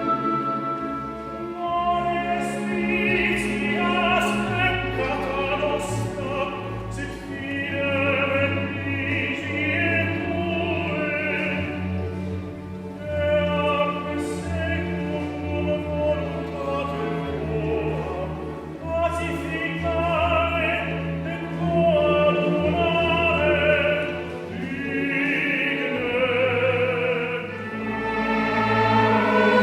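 Classical singing with vibrato over a chamber orchestra's sustained strings, with a few short pauses in the voice.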